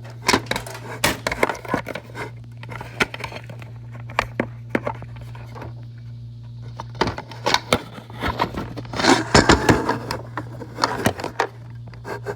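Handling noise: irregular clicks, knocks and rustles as things are moved and adjusted close to the microphone, busiest about two-thirds of the way through, over a steady low hum.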